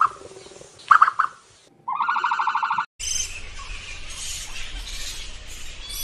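A roosting colony of flying foxes (fruit bats) chattering and squeaking, which starts abruptly about halfway through. Before it come two short calls and a rapidly pulsed buzzing call of unclear source.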